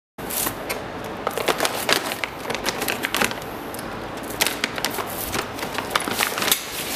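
Plastic bag of small parts crinkling and rustling as it is opened and handled, a dense run of sharp crackles that starts abruptly just after the beginning.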